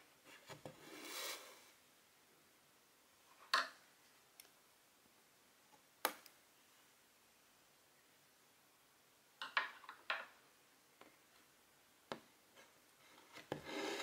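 Hand cross-stitching with silk thread: a soft rustling swish about a second in as thread is drawn through the fabric, then a handful of short, sharp clicks spread through the rest.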